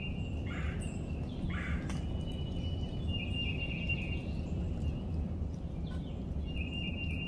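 Outdoor ambience with a small animal's high, steady trill lasting about a second, repeated three times, over a constant low rumble.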